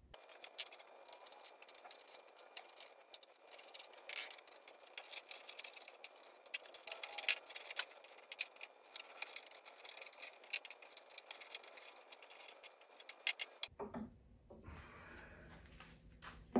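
Scattered light metallic clicks and rattles of a hex key, wrench and small mounting bolts as the X-Carve's stepper motors are unbolted. The clicking stops about three seconds before the end, leaving faint handling noise.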